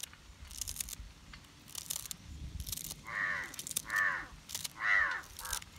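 A crow cawing three times about a second apart, then a shorter fourth call, over a few short sharp clicks from a small knife slicing green chilies and coriander held in the hand.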